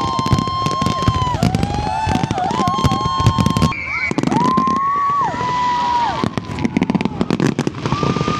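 Fireworks going off in rapid crackling pops, with several high whistles that hold steady, wobble and then slide down in pitch.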